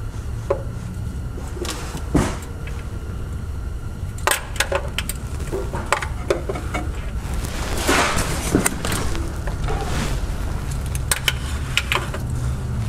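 Socket wrench on a long extension loosening an oil pan bolt: irregular short runs of metallic clicks and taps, over a steady low hum.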